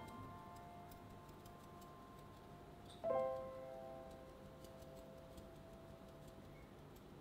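Closing notes of soft background music: a single piano-like chord struck about three seconds in, ringing and slowly fading out.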